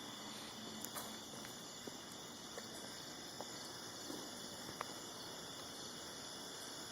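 Steady high-pitched trilling of night insects such as crickets, with a few faint scattered ticks and snaps.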